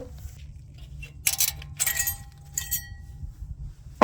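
Steel-backed brake pads clinking against each other as they are handled: about three sharp metallic clinks, each leaving a short ringing tone.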